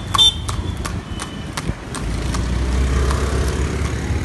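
A horse's hooves clip-clopping in a steady beat. About halfway through, a low rumble swells in under the hoofbeats.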